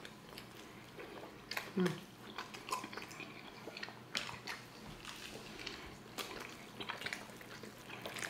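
Close-miked chewing of chicken quesadilla: many small wet mouth clicks and smacks, with a short closed-mouth hum about two seconds in.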